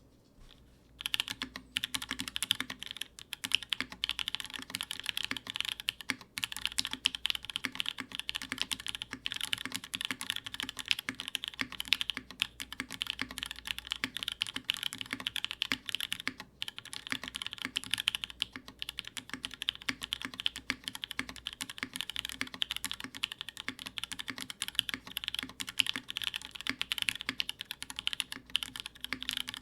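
Continuous fast typing on a mechanical keyboard fitted with lubed, filmed, spring-swapped Cherry MX2A Orange switches on an aluminium plate with no foam. The typing starts about a second in.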